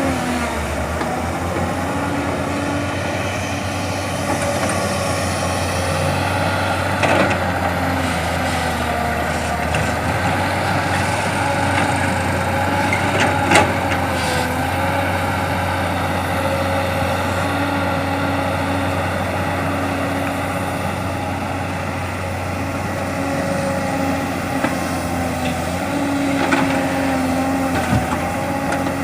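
Heavy diesel excavator running steadily under load as it works, its engine and hydraulics holding several steady tones that shift slightly in pitch, with a few sharp knocks, the loudest about halfway through.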